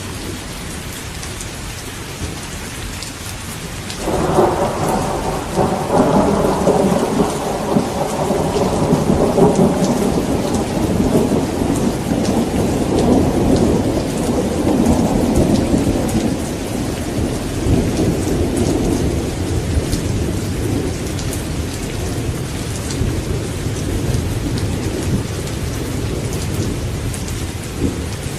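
Steady rain with a long peal of thunder that breaks in suddenly about four seconds in, rolls loudly for several seconds and then slowly dies away under the rain.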